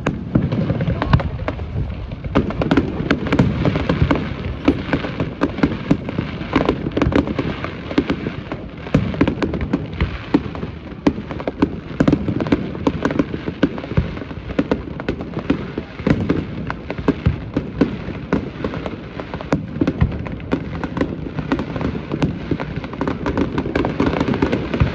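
Fireworks display with many shells bursting in quick, irregular succession, a dense run of booms and crackles.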